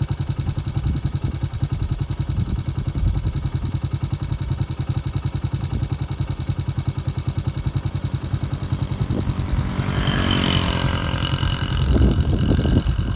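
Small motorcycle engine idling with a rapid, even putter. From about ten seconds in, a second motorcycle grows louder as it comes up the road.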